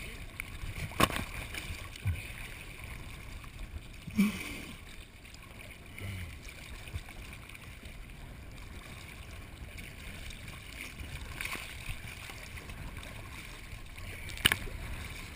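Water sloshing and lapping at the surface, with a sharp knock about a second in, a low thump around four seconds and another sharp knock near the end.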